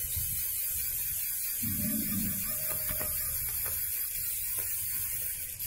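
Decathlon Geonaute hand-crank dynamo torch whirring steadily as its crank handle is turned continuously, spinning the gears and generator to charge its supercapacitor.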